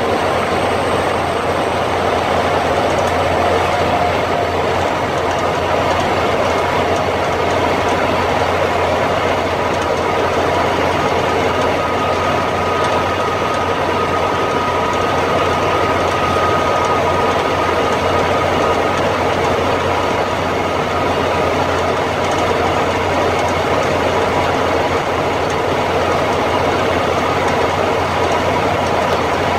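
M35A2 2½-ton military truck heard from inside its cab while driving: the turbocharged multifuel diesel engine and drivetrain run steadily under heavy road and cab noise.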